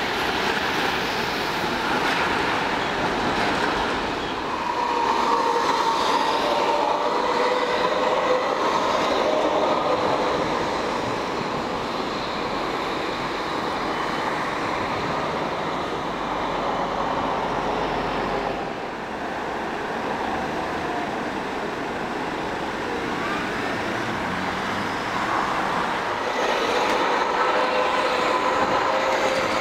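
Modern low-floor electric trams passing on street rails, with wheel-on-rail rumble and street traffic noise. A motor whine comes and goes twice, once early and again near the end.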